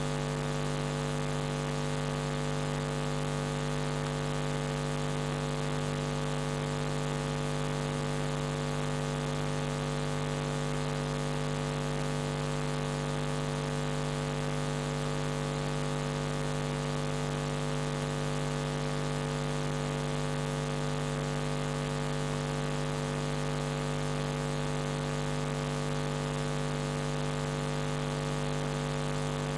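A steady low hum made of several fixed tones, unchanging in pitch and level, over a faint even hiss.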